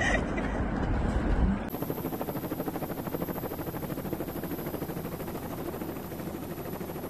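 Low rumbling noise that cuts off suddenly about a second and a half in. It is followed by a steady, rapid chopping pulse from the rotors of the aircraft filming from the air, with a thin high whine over it.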